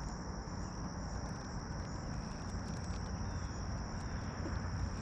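Insects trilling in a steady high-pitched chorus, over a low rumble and a few faint clicks.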